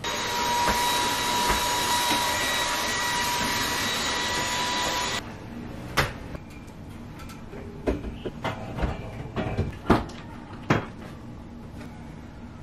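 Cordless stick vacuum running with a steady high whine, cutting off suddenly about five seconds in. After it, a scattering of sharp knocks and handling noises as the bedding is moved.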